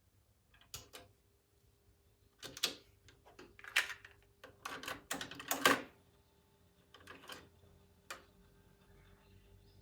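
A run of irregular plastic clicks and clatter, typical of pressing a cassette deck's keys and handling a cassette, loudest around the middle. A faint steady hum sits underneath from about a second in.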